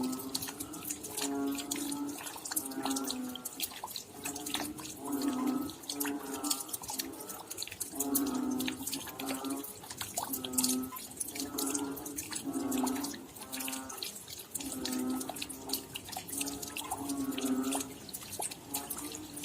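Rain dripping and pattering, with a steady series of short, low-pitched calls about once a second throughout.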